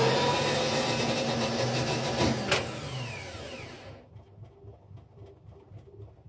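Electric starter motor spinning at speed on a test bench, with a sharp click about two and a half seconds in, after which it winds down, falling in pitch, and stops about four seconds in.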